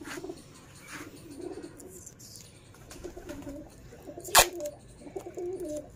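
Domestic pigeons cooing in low, wavering calls. A single sharp knock comes a little over four seconds in.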